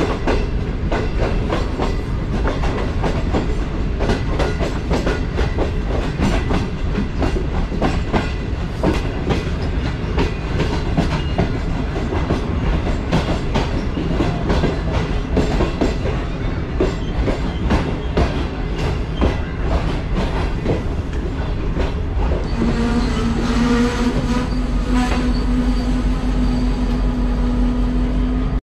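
Pakistan Railways passenger express coming into the station, its wheels clattering steadily over the rail joints. Near the end a steady, sustained pitched tone joins in for about six seconds.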